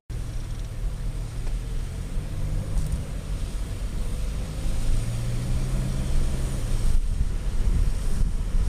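Car driving along a road, heard from inside the cabin: a steady engine hum and tyre rumble with road hiss. The hum eases about seven seconds in and wind buffets the microphone near the end.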